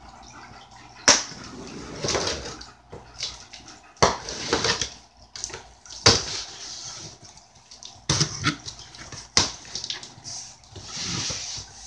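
Packing tape being picked at and ripped off a cardboard shipping box: a handful of sharp knocks and taps on the cardboard, a second or two apart, between rasping stretches of tape tearing. Near the end a box flap is torn open with a longer tearing rasp.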